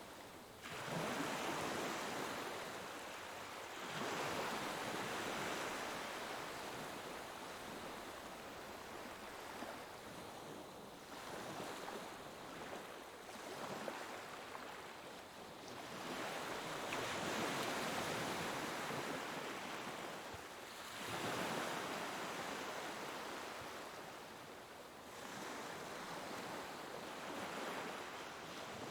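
Sea waves breaking and washing onto a shore: a steady hiss of surf that surges about every four to six seconds and dies back between waves.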